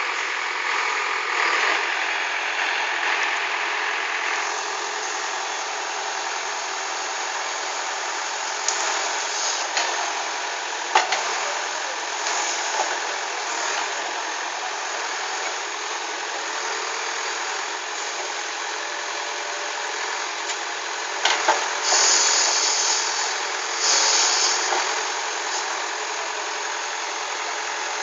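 Caterpillar 424B backhoe loader's diesel engine running steadily while it works. There is a sharp knock about eleven seconds in, and late on two short bursts of hiss.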